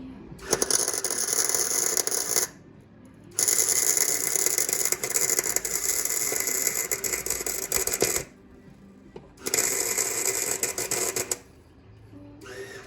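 A power tool run in three bursts, the middle one the longest, with a busy rattling sound.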